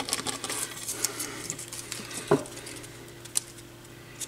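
Hands working a piece of blue painter's tape around the dust-cap opening of a woofer cone to pick up debris, then setting it down on the wooden bench: scattered light taps and rustles with a few sharper clicks, the loudest about halfway through. A faint steady hum lies underneath.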